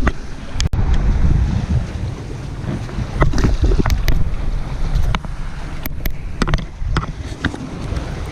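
Wind buffeting the microphone in a boat on open water, a heavy low rumble, with scattered short clicks and knocks of handling.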